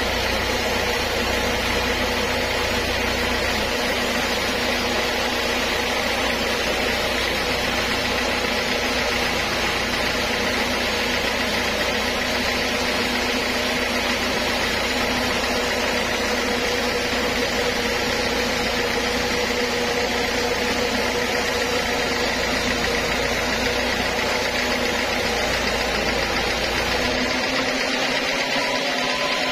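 Band sawmill running with a steady mechanical drone while sawing teak. Near the end the deep hum drops away and the tone rises a little.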